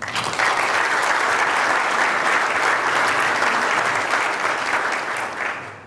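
Audience applauding, a dense patter of many hands clapping that starts at once and dies away near the end.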